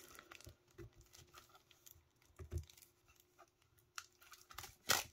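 Faint handling of a pack of trading cards as it is unwrapped and the stack is taken out: scattered small clicks and light rustles, with a couple of slightly louder taps about halfway through and near the end.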